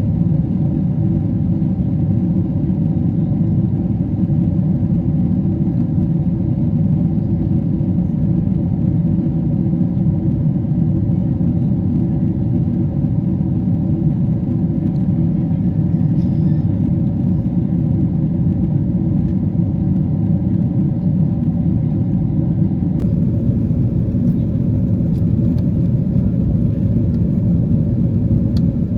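Steady drone of a Boeing 777-300 airliner heard from inside the passenger cabin at cruise: a constant low rumble of engine and airflow noise.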